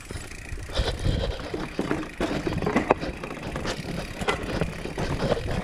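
Mountain bike ridden over rough trail: a steady rumble of wind and tyre noise on the camera microphone, with irregular clicks and knocks from the bike jolting over bumps.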